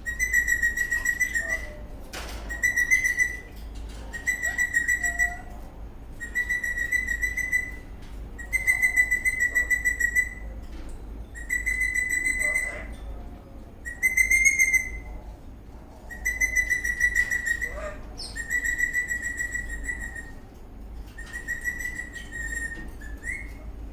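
Eastern rosella whistling: a dozen or so trilled whistle notes on the same steady pitch, each about a second long, repeated every second or two.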